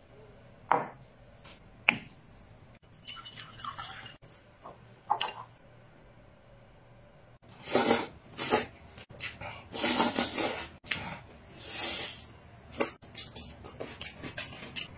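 Noodles being slurped from a bowl: about four loud, wet slurps in the second half. A few short clicks and knocks of chopsticks against a porcelain bowl come before them.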